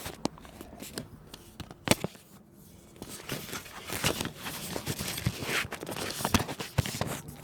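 Phone being pushed into a hard phone case, heard right on its own microphone: rubbing and scraping with scattered sharp clicks, a loud one about two seconds in and several more near the end.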